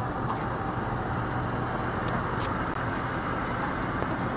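Police car, a Dodge Charger, rolling slowly across a parking lot toward the camera, giving a steady, even vehicle noise.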